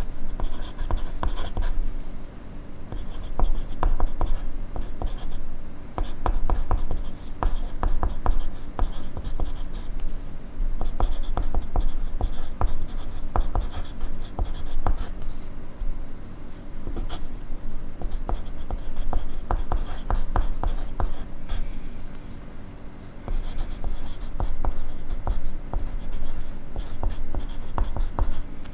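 Pencil writing on paper in runs of quick scratchy strokes, with short pauses between the runs.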